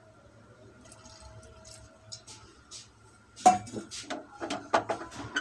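Water trickling and dripping into an aluminium pressure cooker of washed greens. About three and a half seconds in, a run of sharp knocks and clatter follows as the pot is handled.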